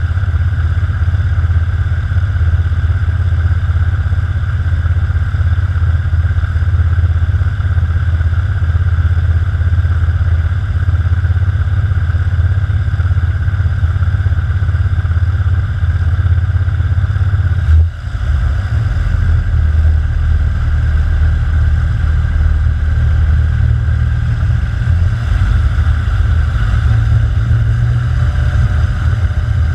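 Kitfox IV floatplane's engine and propeller running steadily at low power on the water, with one brief dip in level about two-thirds of the way through. Near the end the engine note rises as the throttle opens for the takeoff run and the floats begin throwing spray.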